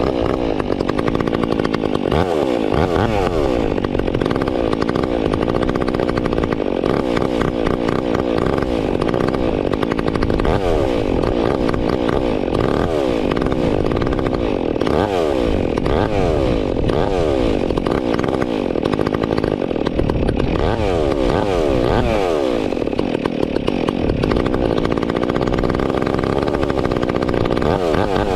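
Stihl MS 362 C-M two-stroke chainsaw with an Egan Straight Shot performance muffler, running loud and being revved again and again, its pitch falling back after each rev.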